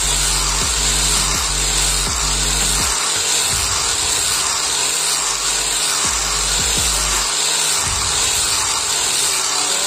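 Electric angle grinder with a sanding disc running steadily against a wooden knife handle, sanding it smooth. Background music with a steady beat plays underneath.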